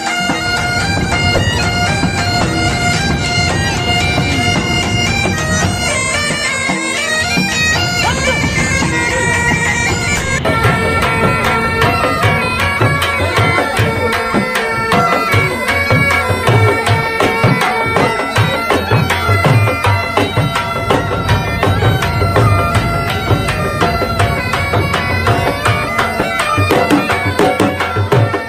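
Music: a held wind-instrument melody over drums, the drumming growing more prominent about ten seconds in.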